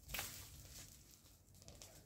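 Dry leaves and twigs rustling as they are gathered up by hand off the ground, loudest just after the start and then fading.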